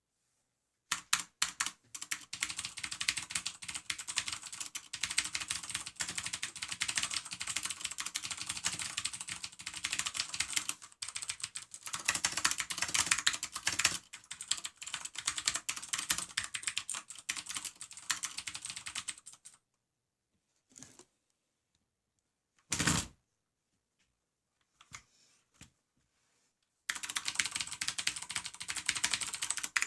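Fast typing on a Hansung MCF7 mechanical keyboard with Cherry MX Blue switches, a rapid clicky clatter of keystrokes. The typing stops for several seconds about two-thirds of the way through, with one short louder noise in the pause, then picks up again near the end.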